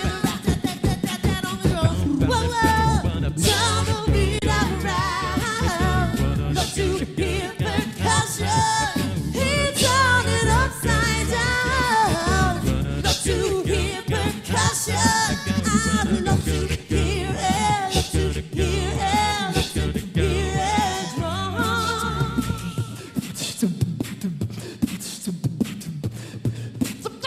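Five-voice a cappella group singing, with beatboxed vocal percussion and a sung bass line standing in for a band's drums and bass. About 23 seconds in, the deep bass drops out and lighter voices carry on.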